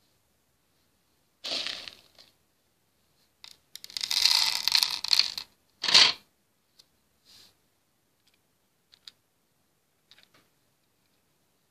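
Bursts of rustling, scraping handling noise, the loudest and longest about four seconds in, followed by a few light clicks of plastic hama beads being set on the pegboard.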